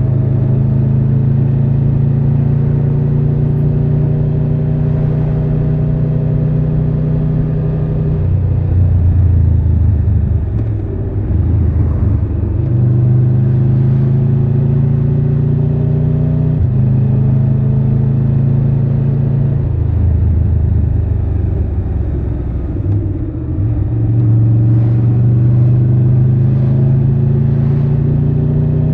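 Triumph Tiger 1200 Rally Pro's inline three-cylinder engine under way, its note climbing slowly as it pulls and dropping sharply several times at gear changes.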